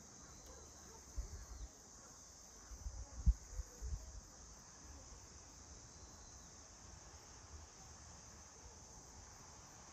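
Insects calling in a steady high-pitched drone, with a few short low thumps between about one and four seconds in.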